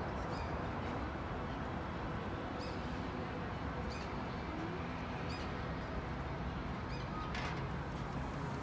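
Steady outdoor background noise with a steady low rumble, and short, faint high chirps from birds every second or so.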